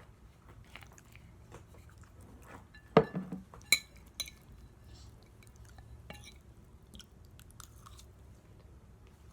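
Close-miked chewing of syrup-soaked pancakes, with small wet mouth clicks throughout. A sharper knock comes about three seconds in, and another click follows shortly after.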